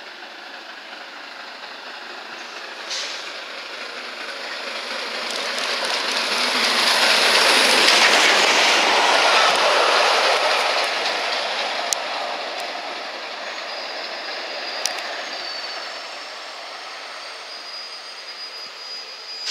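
Steam-hauled passenger train passing at speed: a rush of wheel and rail noise that builds to a peak about eight seconds in and fades as the coaches run by and away, with a few sharp clicks and a thin high wheel squeal in the last few seconds.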